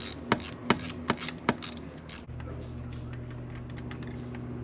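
Ratchet wrench clicking in short regular strokes, about two or three clicks a second, while working a spark plug out of the engine. The clicking stops about one and a half seconds in, and a steady low hum begins about two seconds in.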